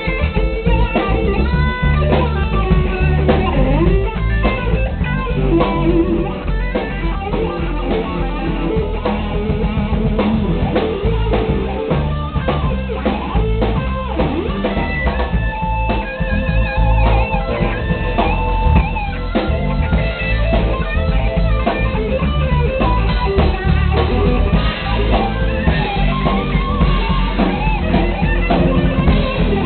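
Blues band playing live: a Les Paul-style electric guitar plays lead lines with bent, wavering notes over a drum kit.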